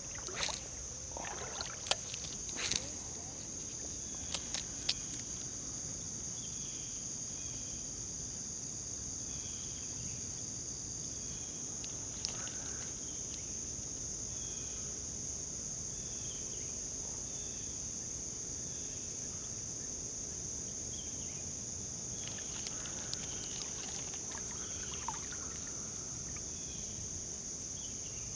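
Steady high-pitched chorus of insects, with a softer chirp repeating about once a second. A few sharp clicks and knocks come in the first five seconds.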